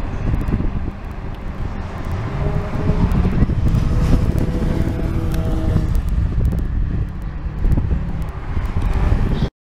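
Racing cars' engines at speed going past on the circuit, their notes rising and falling over a heavy low rumble. The sound cuts off suddenly near the end.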